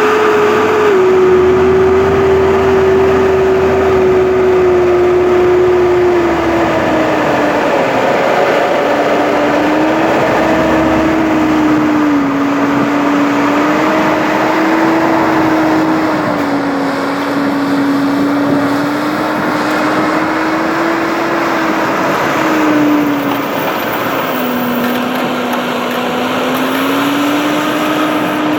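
Fendt 724 Vario tractor's six-cylinder turbo-diesel engine running under load, pulling a six-furrow reversible plough. Its steady whine drops in pitch about a quarter of the way in, then wavers slightly up and down.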